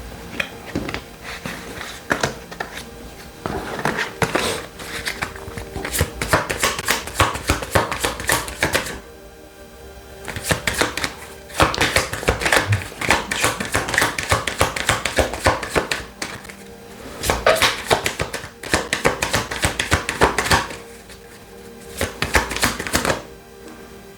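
A deck of tarot cards being shuffled in several bursts of rapid clattering riffles, with pauses between them, over soft background music.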